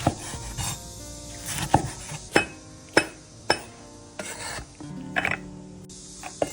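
Background music with about seven irregular sharp knocks of kitchen utensils being handled.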